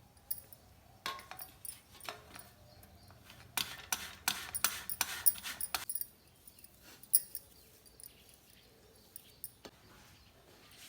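Light clinking and clattering of hard objects being handled: a few knocks, then a dense run of clatter lasting about two seconds, then a single sharp click.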